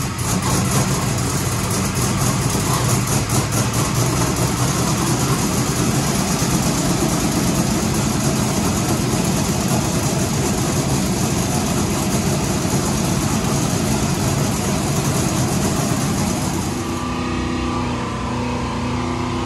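Carbureted 436-cubic-inch small-block Chevy V8 running loud and steady on an engine dyno just after its first start. About 17 seconds in the sound turns duller and quieter, the engine now heard through the dyno control-room glass.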